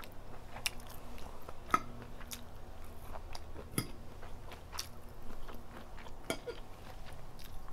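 A person chewing a mouthful of omelette on a clip-on microphone close to the mouth, with scattered short mouth clicks throughout.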